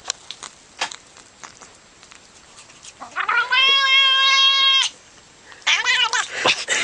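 Domestic cat yowling: one long, steady-pitched call of about two seconds starting about three seconds in, then a shorter wavering call near the end. A few light clicks come before the calls.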